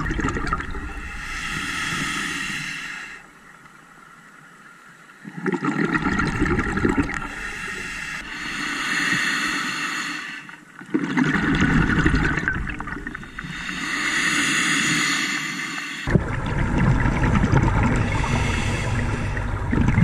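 A scuba diver breathing underwater on an open-circuit regulator. Hissing inhalations through the regulator alternate with bubbling exhalations from the exhaust, over about three full breaths, with one pause after the first inhale.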